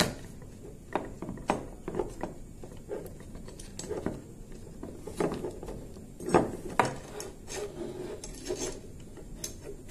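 Handling noise from an ADSS cable anchor clamp, its plastic wedge body, steel wire bail and bracket, worked on a fibre cable: irregular clicks, knocks and rubbing, with a couple of sharper knocks a little past the middle.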